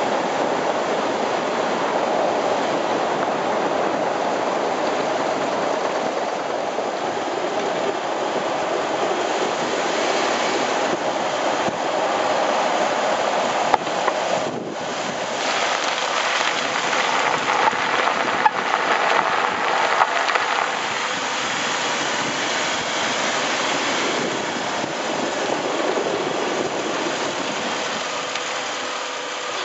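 Jeep Wrangler LJ Unlimited Rubicon's front suspension and steering linkage rattling under steady road and tyre noise while driving, heard from beneath the vehicle beside the front wheel, as the front end shakes in death wobble. A few sharp knocks come between about a third and two-thirds of the way in, and the noise eases a little near the end.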